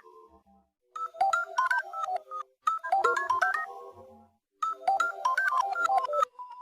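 Claro phone notification tones: three short melodic runs of quick electronic notes stepping up and down, each about a second and a half long, with brief gaps between them.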